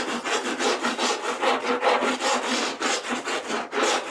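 Surform rasp scraping along glued-on wood blocks in quick, evenly repeated strokes, several a second, rounding their edges and shaving off excess cured polyurethane glue.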